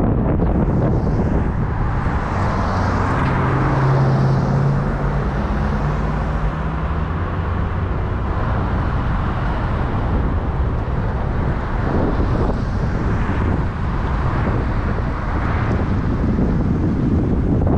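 Wind buffeting the microphone of a camera moving along a road, over steady road and traffic noise. A low engine hum stands out for a few seconds about three seconds in.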